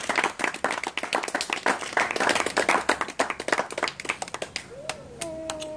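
Wedding guests clapping and applauding the couple's first kiss; the clapping thins out and dies away about four and a half seconds in.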